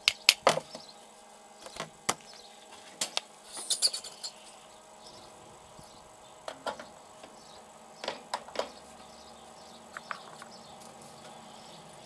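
Scattered sharp metal clicks and clinks from handling a portafilter on a vintage two-group Gaggia lever espresso machine, as the coffee is tamped and the portafilter is fitted into the group head. The clicks come in small clusters, the loudest ones right at the start and again about four and eight seconds in.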